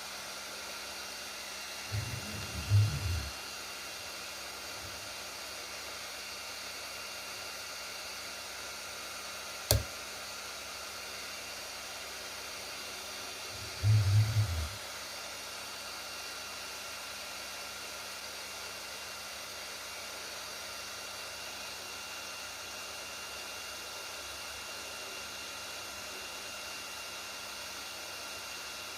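Kingroon KP3S 3D printer running: a steady fan hiss with a faint whine. Two brief low rumbles come about 2 and 14 seconds in, with a single sharp click near 10 seconds.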